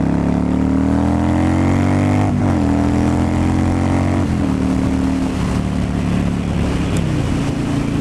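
Yamaha V-twin cruiser motorcycle accelerating through the gears: engine pitch climbs, drops at upshifts about two and four seconds in, then settles to a steady cruise. Wind noise runs under the engine.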